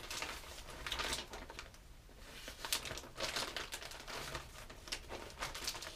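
Clear plastic zip-top bags of soft plastic fishing worms crinkling and rustling in irregular spells as they are handled.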